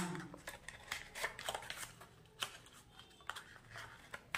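Stiff paper pattern pieces rustling as they are handled and fitted together, in short irregular crinkles.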